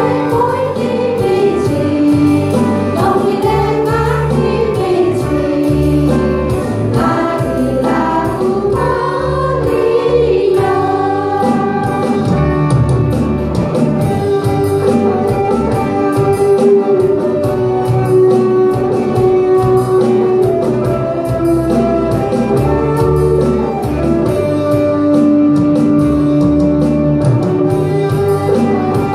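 A women's choir singing together over instrumental accompaniment, with long held notes.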